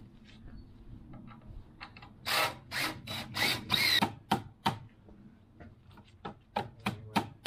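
Knocks and scrapes on a timber frame. There are sharp, irregular knocks, a few longer rasping scrapes between about two and four seconds in, then quicker taps near the end.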